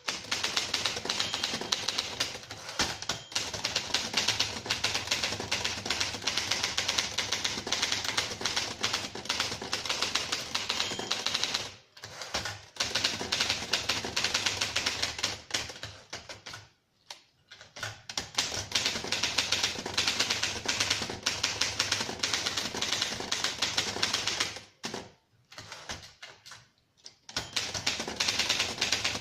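1937 Rheinmetall portable typewriter being typed on: fast, dense runs of key strikes, broken by a few short pauses and a longer pause near the end.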